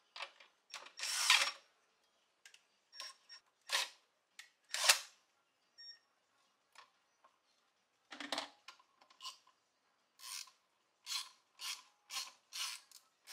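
Cordless drill-driver running in short bursts to loosen the hose-clamp screws on an intake pipe, with clicks and knocks of metal tools and clamps. Near the end comes a quick series of short strokes, about two a second.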